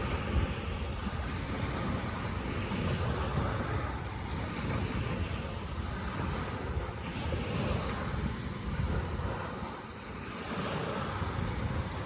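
Waves washing in with wind buffeting the microphone: a steady rushing hiss over a low, gusting rumble that swells and eases every few seconds.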